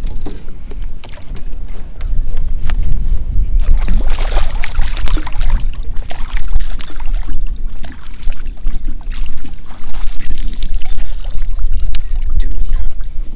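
A hooked redfish thrashing and splashing at the water's surface beside a kayak, loudest from about four seconds in, over a steady low rumble, with scattered sharp clicks and knocks.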